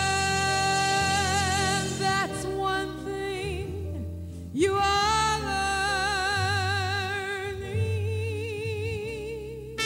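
Female vocalist singing long held notes with vibrato, backed by a big band. There is a short break and a new note about four and a half seconds in.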